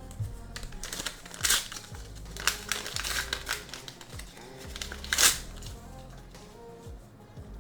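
Paper Pokémon card pack crinkling and rustling as it is handled and opened, in several loud short bursts, the loudest about five seconds in. Background music with a steady low beat plays throughout.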